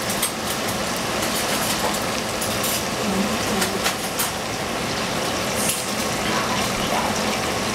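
Food frying in a pan: a steady sizzle with scattered small pops.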